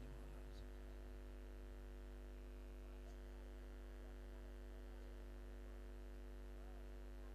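Steady electrical mains hum from the microphone and sound system, a low drone with a stack of steady overtones, with a couple of faint ticks.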